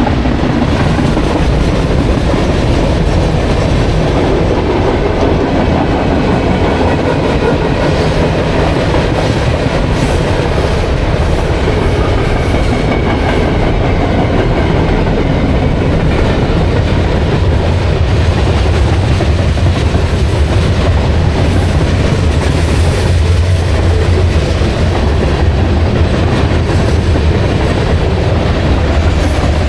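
CSX mixed freight train rolling past, its cars' wheels running steadily on the rails. The noise is loud and continuous and grows deeper in the middle of the passage.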